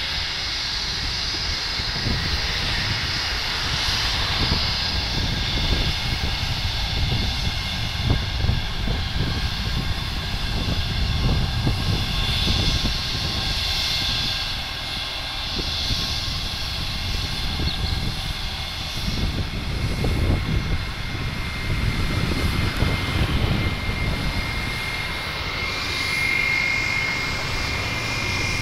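IndiGo Airbus narrow-body jet's engines running at low power while it taxis on the runway: a steady distant whine over a low rumble.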